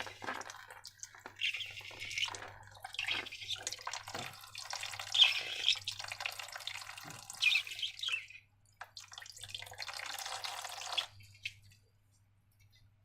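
Wet, sticky slime squelching and crackling in irregular bursts as it is worked by hand. It stops near the end.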